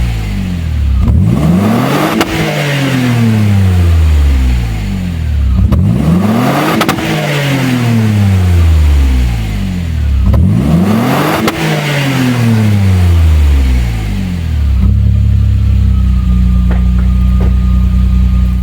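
Alfa Romeo 164's 2.0-litre V6 Turbo Busso engine being blipped three times, each rev rising quickly and dying away slowly, then settling to a steady idle about fifteen seconds in. The engine is running again after a crank-no-start repair.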